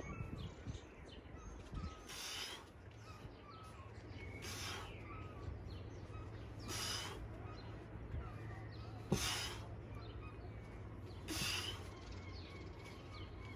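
A man's forceful exhalations, one with each weighted sit-up, five times at an even pace of about one every two seconds.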